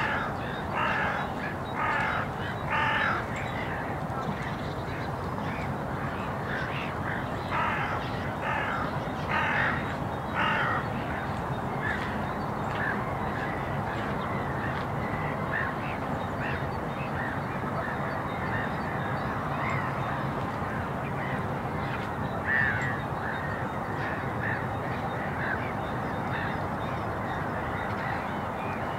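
Crow cawing in two runs of about four harsh caws each, one at the start and one around eight to ten seconds in, with fainter calls scattered after. Under it runs a steady low background rumble.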